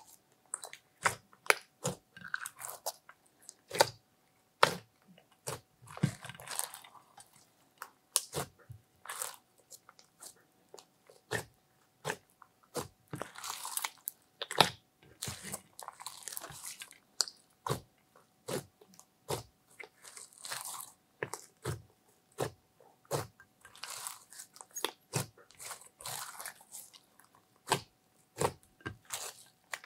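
Hands kneading, squeezing and pulling apart a large mass of glossy slime mixed with clay, glitter and crushed makeup: a dense, irregular run of sticky clicks and pops, with several longer crackling stretches as the slime is stretched and torn.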